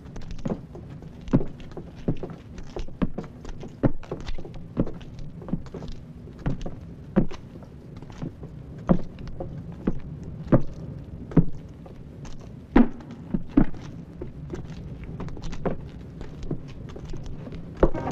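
Footsteps on stone: sharp, irregular steps about two a second, over a faint low steady hum.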